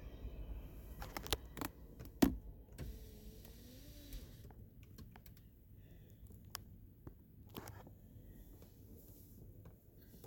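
A few sharp clicks and knocks, the loudest about two seconds in, over a low rumble that fades away in the first seconds.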